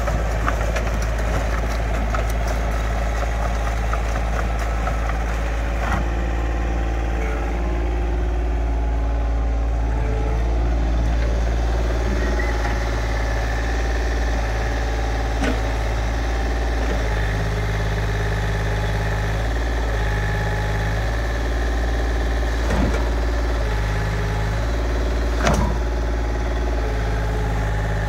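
Komatsu PC10-6 mini excavator's diesel engine running steadily while the machine tracks and works its hydraulics, the engine note shifting and stepping with the load. A few short, sharp knocks stand out over the steady running.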